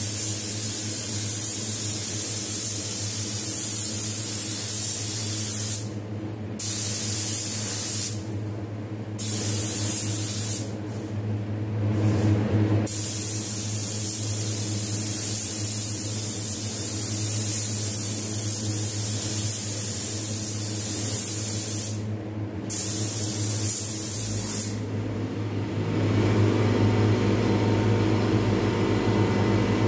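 Paint spray gun hissing in repeated passes, cut off briefly several times between passes. A steady low hum runs underneath and grows louder near the end as the hiss dies down.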